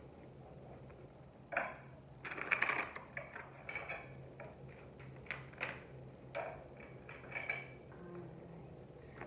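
A tarot deck shuffled by hand: cards rustling and slapping together in a series of short bursts, the busiest about two to three seconds in, over a faint steady low hum.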